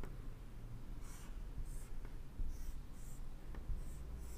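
Marker pen drawing on a whiteboard: a series of short, faint scratchy strokes as a hexagonal ring is sketched.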